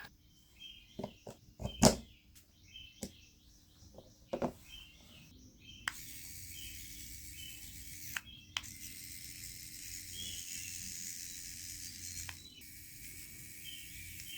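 Scattered light clicks and knocks, then a steady high hiss that switches on abruptly about six seconds in; short bird chirps repeat in the background.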